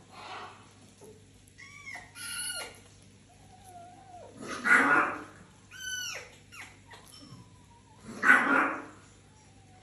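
Fennec foxes vocalizing at close range: several short whining and yipping calls, some falling in pitch, and two louder harsh cries about five and eight and a half seconds in.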